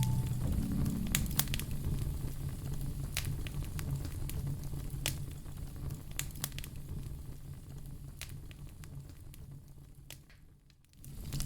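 Wood fire in a fireplace crackling: scattered sharp pops over a low steady rumble, fading down near the end.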